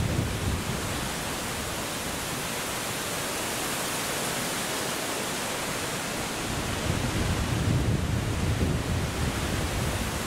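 Strong gusty wind rushing over the microphone: a steady noise with low, rumbling buffets that swell about two-thirds of the way in.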